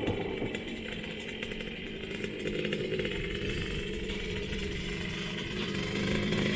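Yamaha Blaster quad's two-stroke single-cylinder engine running under way, its note fairly steady.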